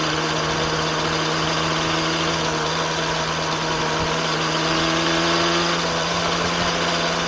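Yamaha RZ250R's two-stroke parallel-twin engine idling steadily, breathing through its freshly overhauled expansion chambers and silencers.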